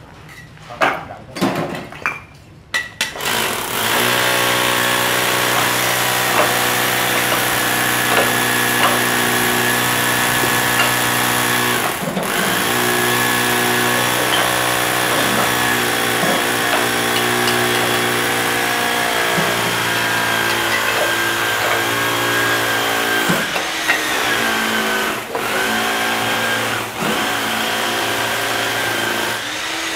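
Concrete mixer running steadily, a loud mechanical hum with a slight wavering pitch and a few brief dips. It comes in abruptly about three seconds in, after a few short knocks.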